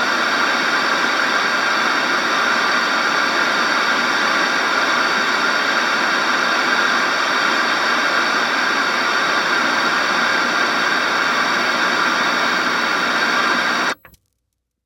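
Steady electronic static, an even hiss with faint steady tones running through it, that cuts off suddenly about a second before the end.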